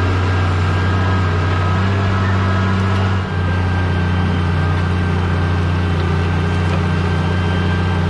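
New Holland tractor engine running steadily under load while pulling a conventional plough through the soil, with a brief dip about three seconds in.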